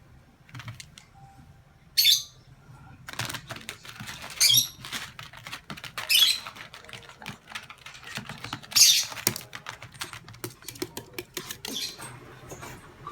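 Rapid clicking and skittering of a Pomeranian's and a kitten's claws on a hard floor as they chase each other, with a few short, louder scrabbling scuffles.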